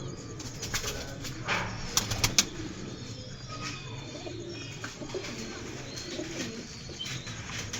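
Pigeons cooing, with a cluster of sharp clatters about two seconds in.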